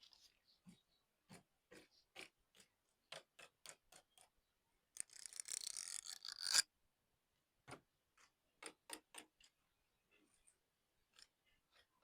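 Light clicks and taps of drink cups and bottles being handled, with liquid pouring into a cup for about a second and a half around five seconds in, growing louder before stopping abruptly.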